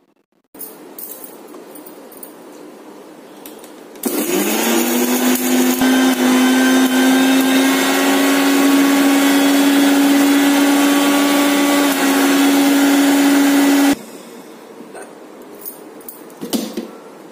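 Mixer grinder motor dry-grinding chillies and garlic in its steel jar: about four seconds in it spins up with a quickly rising whine, runs steadily for about ten seconds, then cuts off. Before and after, clicks and knocks of the steel jar being handled on the base.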